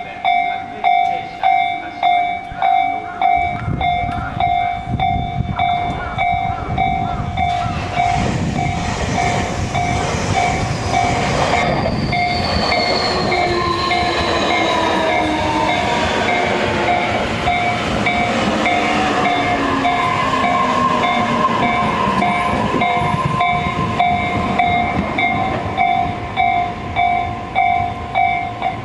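Railroad crossing warning bell clanging in a steady repeating rhythm, while a Tobu Noda Line electric train passes through the crossing from about four seconds in: a loud rumble of wheels on rails with a motor whine falling slowly in pitch. The bell keeps ringing after the train's rumble dies away near the end.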